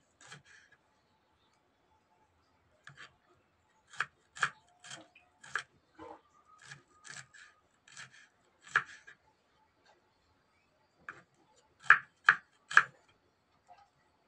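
Kitchen knife slicing shallots and small red chillies on a wooden cutting board: sharp taps of the blade on the board, in irregular runs of two or three a second with pauses between. The loudest taps come near the end.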